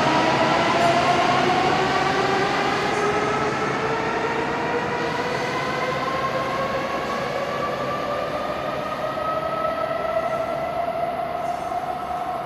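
Nishi-Kyushu Shinkansen Kamome train (N700S) accelerating away, its traction motors whining in several tones that rise slowly in pitch over running-gear rumble, the sound gradually fading as it pulls away.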